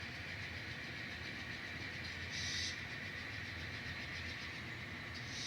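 N scale model locomotive running along the track with a steady hum and a faint high whine, broken by two short hisses, about two and a half seconds in and again near the end.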